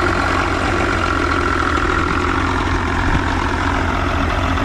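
Outboard motor idling steadily with an even low rumble.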